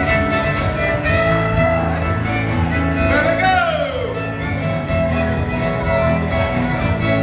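Old-time fiddle music with a steady beat, played for dancing. Near the middle the fiddle slides down in pitch.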